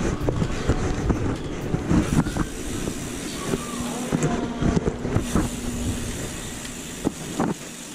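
Wind noise buffeting a handlebar-mounted action camera on a moving mountain bike, with the bike rattling and knocking over rough concrete. A steady low hum joins for a couple of seconds midway.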